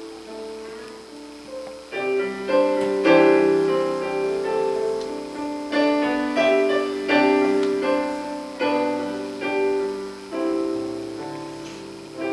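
Piano playing slow, gentle chords, each struck and left to fade; quieter for the first two seconds, then fuller.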